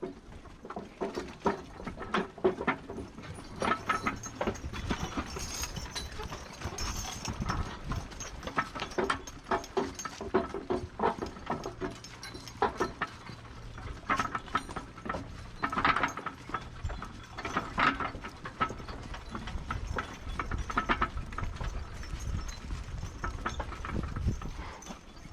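A team of draft mules' hooves clopping at a walk as they pull a wagon, with irregular knocks and rattles from the wagon and harness.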